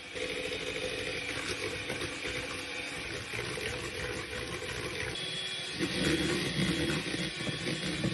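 Electric hand mixer running, its beaters whipping eggs and sugar in a plastic bowl into a thick, pale foam for sponge cake. The motor sound is steady and grows louder about six seconds in.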